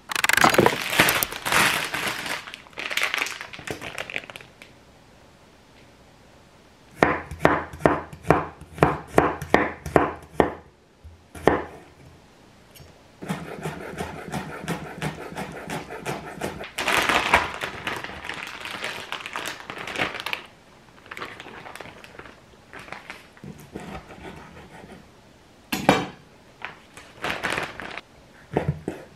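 Kitchen knife chopping on a wooden cutting board: a run of quick, even chops, about three to four a second, as green onion is chopped, later scattered single knocks as the knife cuts through a squid. A loud burst of rustling and handling noise fills the first few seconds.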